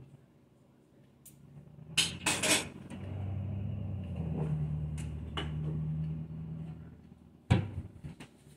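Kitchen clatter: a few sharp knocks about two seconds in, a low steady hum for several seconds, then another knock near the end.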